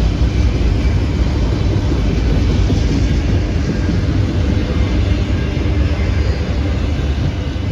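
Freight train rolling past with a steady, loud rumble.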